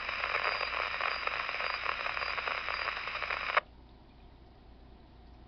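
RadioShack radio scanner's speaker giving a loud rush of static on an open channel with no voice. It cuts off abruptly with a short squelch-tail burst about three and a half seconds in, leaving a faint hiss.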